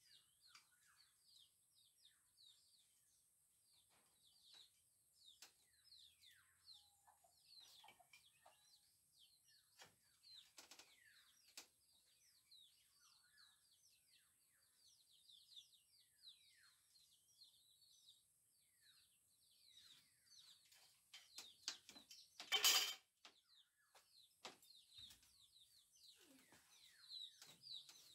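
Small birds chirping faintly and continuously, many short, quick falling chirps, with a few scattered knocks and one louder clatter about two thirds of the way through.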